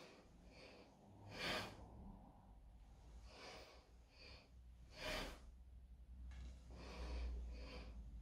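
A person breathing hard in rhythm with wooden-sword cuts. There is a sharp, loud exhale with each downward cut, twice, about three and a half seconds apart, and softer breaths as the sword is raised between cuts.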